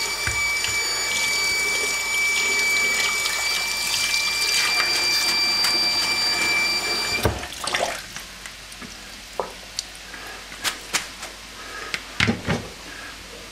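Kitchen tap running onto noodles in a plastic colander in the sink, a cold rinse to stop them cooking, with a steady high whistle running along with the flow. About seven seconds in the tap is shut off sharply, and a few light knocks follow as the colander is handled over the sink.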